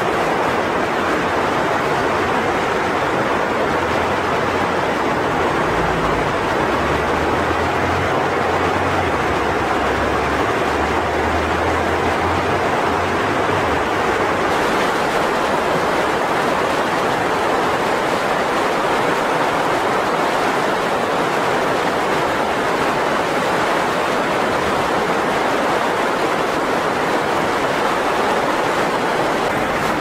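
Mountain river rapids: whitewater rushing steadily in an even, dense hiss of water.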